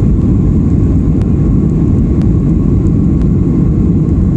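Cabin noise of a Boeing 737-800 on its takeoff roll: its CFM56 jet engines at takeoff power and the runway rumble make a loud, steady, deep roar. Faint ticks sound about once a second.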